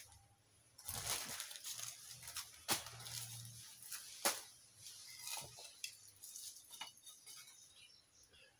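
Pruned vines and dry garden debris rustling and crackling as they are gathered by hand, with a few sharp snaps. The loudest are about three and four seconds in, and the handling dies down near the end.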